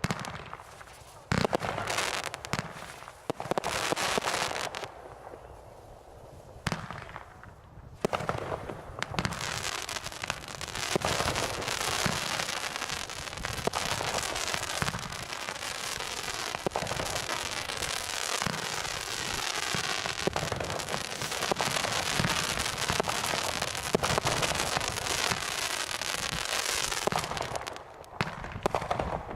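Consumer fireworks going off: a few sharp bangs in the first seconds, a short lull, then a dense, continuous crackling full of rapid pops that runs for about twenty seconds before easing near the end.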